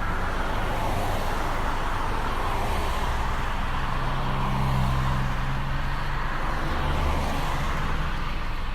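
Busy town traffic: cars and other road vehicles running past in a steady wash of noise, with the low hum of a heavier engine strongest around the middle.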